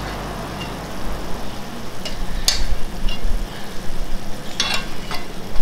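Gnocchi in tomato sauce sizzling gently in a frying pan over a gas burner, under a steady low hum. A few clicks of a metal spoon against the pan come in the second half.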